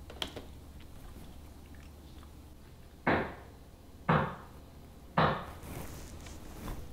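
Three heavy knocks on a door, about a second apart.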